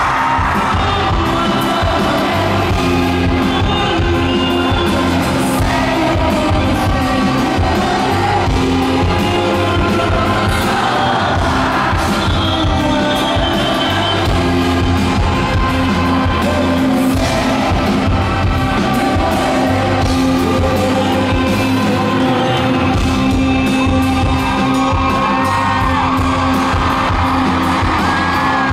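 Live pop music at a concert: a male singer singing into a handheld microphone over a full band with a steady heavy beat, with fans yelling and cheering.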